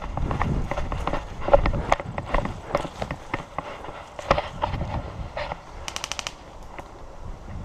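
Rapid footsteps and rattling gear on the move, with scattered clicks and knocks. About six seconds in comes a short full-auto burst of about eight quick shots, typical of an airsoft electric gun.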